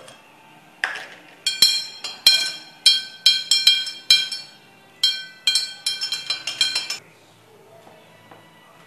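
A metal spoon stirring liquid in a glass jar, clinking again and again against the glass so that the jar rings. The clinks come in two quick runs with a short pause near the middle.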